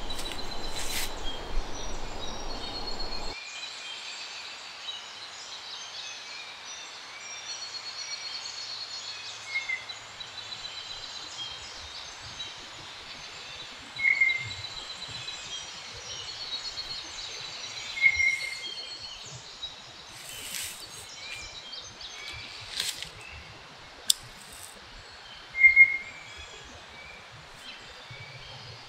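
Background music cuts off about three seconds in, leaving woodland ambience: small birds chirping and trilling over a soft outdoor hiss, with a few louder single chirps.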